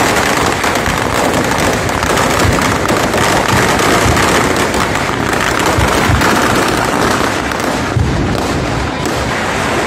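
Ground-level firecrackers and fireworks going off in a dense, unbroken barrage of rapid crackling bangs, with one sharper bang about eight seconds in.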